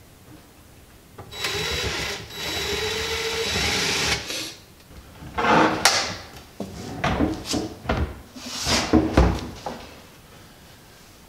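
A small power tool, most like a cordless drill-driver, runs for about three seconds in two pulls of the trigger. Then drawers are pushed in and out on metal ball-bearing slides, with several knocks and short rolling runs.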